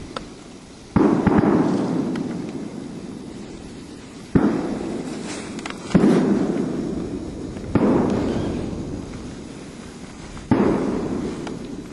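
Five shotgun shots at uneven intervals, each a sudden crack that echoes and dies away over two to three seconds.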